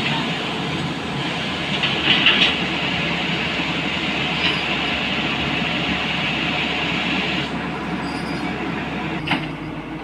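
Tata Hitachi crawler excavator running, a steady engine and hydraulic noise with a hissing, grinding metallic edge, briefly louder about two seconds in.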